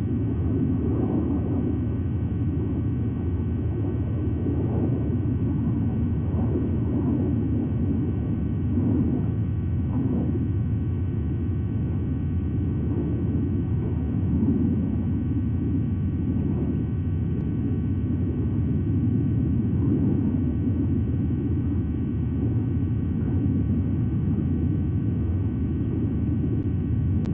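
Steady low rumble of background noise on the nest-camera microphone, with no distinct calls or events standing out.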